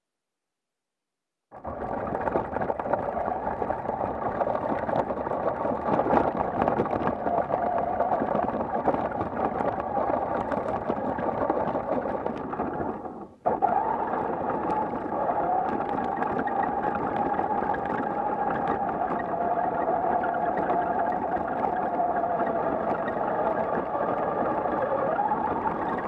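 Electric RC short-course truck heard from its onboard camera: a steady drivetrain and motor whine whose pitch wavers slowly with speed, over tyre and chassis noise with small ticks from dirt and bumps. It starts about a second and a half in, and drops out briefly at a cut about halfway through.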